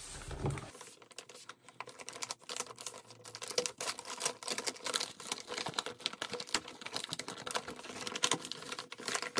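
Paper and plastic package wrapping torn and pulled off by hand: dense, irregular crinkling and rustling.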